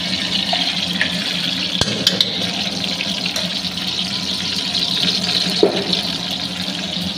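Ghee sizzling steadily as it melts in a hot kadhai, a continuous frying hiss, with a low steady hum beneath it.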